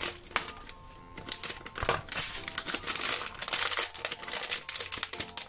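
A foil blind-bag packet crinkling and crackling as it is handled and pulled open. The crinkling is sparse at first and becomes dense and loud about a second and a half in.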